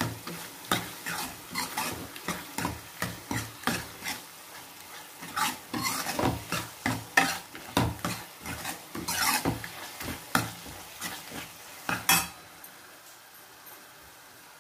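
Metal ladle stirring and scraping around a kadai, mixing spice powders into prawns frying in onion-tomato masala, with a faint sizzle underneath. The stirring strokes stop about two seconds before the end, leaving only the faint sizzle.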